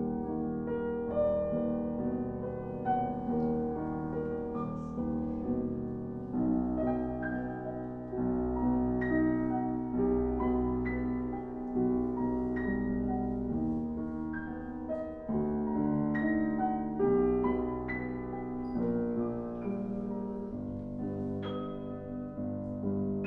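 Piano playing classical-style music live, a flowing line of struck notes over sustained lower harmony.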